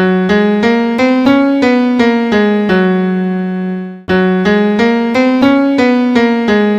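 Piano-type keyboard playing a short phrase of struck notes, about three a second, that step up and back down and end on a held low note. The phrase cuts off about four seconds in and is played again the same way.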